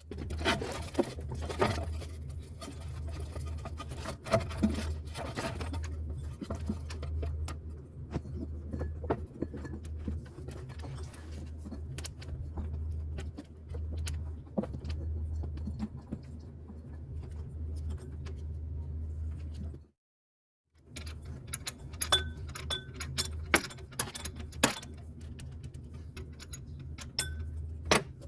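Metal hand tools clinking, tapping and scraping in irregular strokes over a steady low hum. The sound drops out for about a second around two-thirds of the way through.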